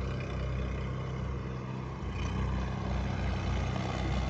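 Tractor diesel engine running steadily with a low, even throb.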